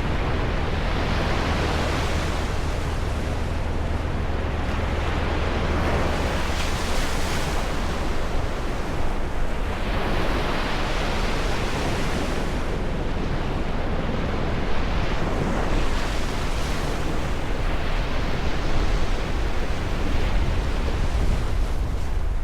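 Ocean waves breaking and washing on the shore, the surf swelling and falling back every few seconds, over a low rumble of wind on the microphone.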